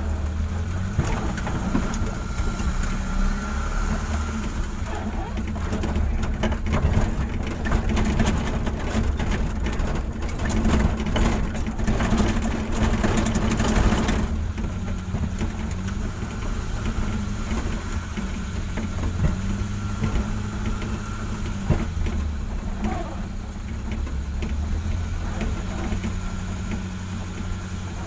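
Car engine running at low speed, heard from inside the cabin while driving on an unpaved road. From about five to fourteen seconds in it grows louder and rougher, with rapid rattling and clattering, then settles back to a steady low hum.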